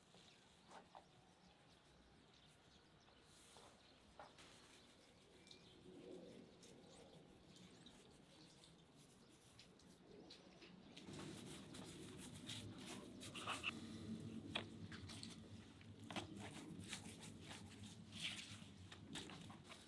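Quiet handling sounds of gloved hands seasoning and moving small raw spatchcocked birds on a wooden cutting board: faint scattered taps at first, turning about halfway into denser clicks and rustling as the birds are picked up and rearranged.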